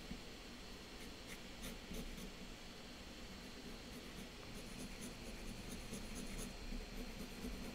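Pencil sketching on toned paper: faint scratchy strokes, short lines laid down in small clusters.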